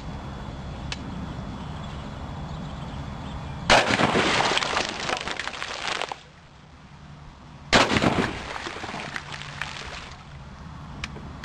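Two shotgun shots about four seconds apart, each followed by about two seconds of noise as it dies away; the first is cut off abruptly. The second shot blows apart a row of hanging apples.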